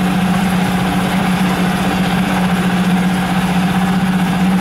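Yamaha F5 four-stroke outboard motor idling steadily, a constant even hum. It is being left running at idle to burn off the fuel in its carburetor, the new, not-yet-run-in engine kept off the throttle.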